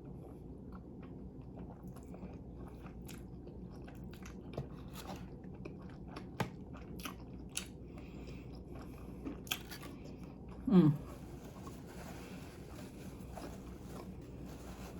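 A person eating close to the microphone: chewing and biting, with scattered crunches and small mouth clicks. About eleven seconds in there is a brief low voiced sound from the eater, the loudest moment.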